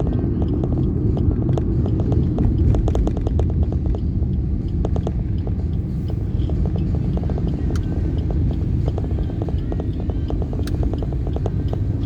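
Steady low rumble of a road vehicle on the move, its road and engine noise peppered with frequent small clicks and knocks.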